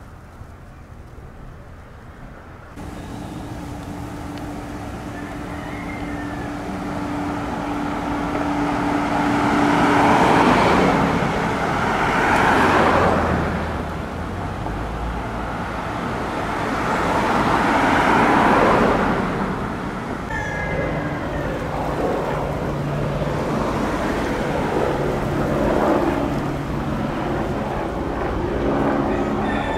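Road traffic: cars passing by one after another, each swelling and fading, the two loudest about a third and two-thirds of the way through. It starts much quieter, and the traffic sound comes in suddenly about three seconds in.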